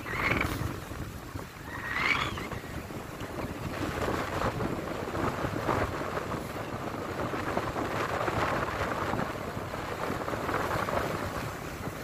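Sea surf surging and breaking against coastal rocks, with wind buffeting the microphone. Two short rising high-pitched sounds stand out in the first two seconds.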